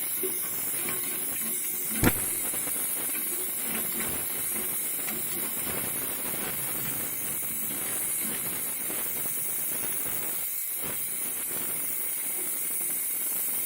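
Steady hiss of gas, with one sharp click about two seconds in.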